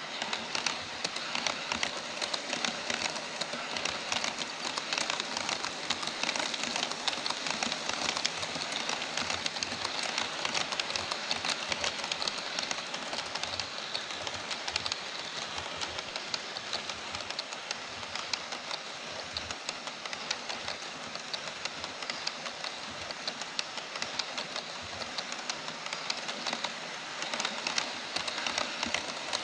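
HO scale model freight train of Taki 43000 tank cars and Koki 104 container wagons rolling past on Kato Unitrack: a steady rattle of small metal wheels on the rails, with a dense, fast patter of clicks.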